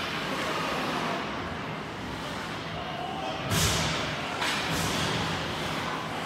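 Hockey rink ambience during play: echoing indistinct voices and a steady hum of the arena. A sharp knock comes about three and a half seconds in, the loudest moment, followed by two fainter knocks soon after.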